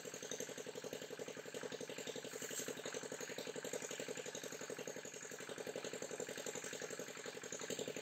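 A small engine running steadily at idle, with a fast, even chugging pulse.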